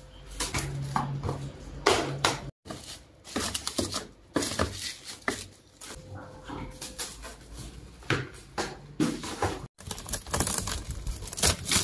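Plastic cling film being pulled off its roll and stretched over a plastic basin, making irregular crinkling and crackling.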